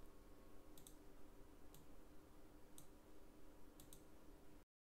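A few faint computer mouse clicks, about one a second, over a low steady hum. Near the end the sound drops out to dead silence.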